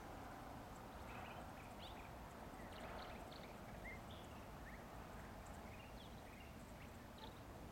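Faint outdoor ambience: a steady low rumble, with small birds giving many short, scattered chirps through it.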